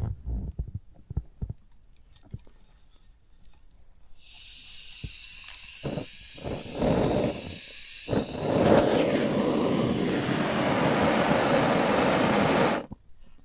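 A steady hiss starts abruptly about four seconds in, with a few knocks. It grows louder and fuller about eight seconds in, then cuts off suddenly near the end.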